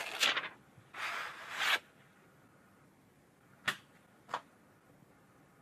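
Thin clear plastic film crinkling as it is peeled off a phone case, in two rustling swishes, then two sharp clicks as a phone case is pressed and snapped onto a smartphone.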